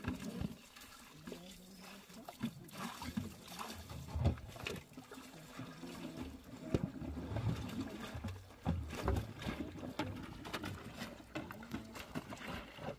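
Clothes being hand-washed in a metal basin: water sloshing and trickling as wet cloth is worked and wrung, with many scattered small clicks and knocks.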